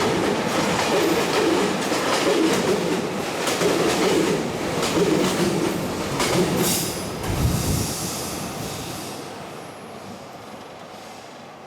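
Freight train wagons running past, the wheels clacking over the rail joints with a steady rumble. There is a brief high screech of the wheels about two-thirds of the way in, then the sound fades away over the last few seconds as the end of the train passes.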